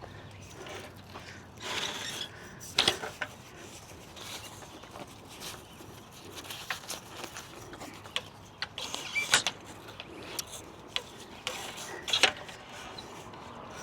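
Scattered clicks and knocks of a car awning's support arms and legs being handled and set into place, a few sharper clacks among softer rattling.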